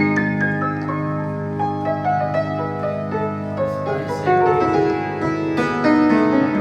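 Piano playing a melody of single notes over held low chords, with a quicker flurry of notes near the end.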